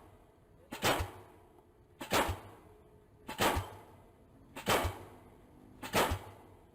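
Pile-driving hammer striking a steel pile, five heavy blows at a steady pace of about one every 1.3 seconds, each with a short knock just before the main strike and a brief ringing tail.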